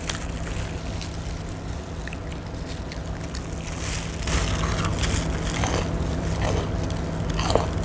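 Bites into crispy fried chicken, the batter crunching as it is chewed, starting about halfway through, over a steady low hum.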